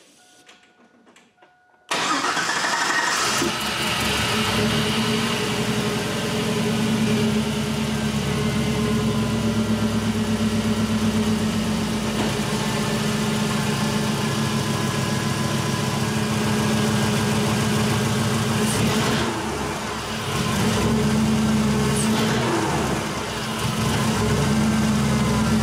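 A 5.3 L LS V8 comes in suddenly about two seconds in and runs under throttle, with its revs held down and dipping briefly twice near the end. The engine control module's abuse mode cuts fuel at around 1200–1500 RPM because it gets no vehicle speed signal, so the engine can't climb.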